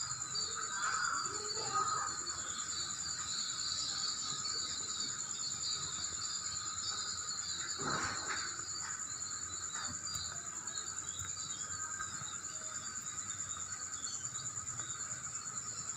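Insects trilling steadily in a continuous high-pitched, rapidly pulsing tone, with irregular chirping beneath it and a brief rustle about eight seconds in.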